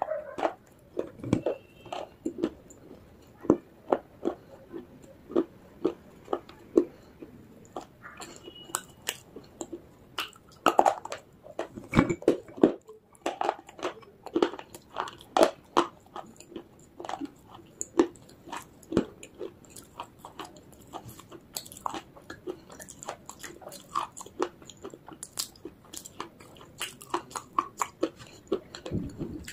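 Baked clay pieces (Punjab ki mitti) being bitten and chewed close to the microphone: a run of sharp, irregular crunches, with a short pause about halfway through.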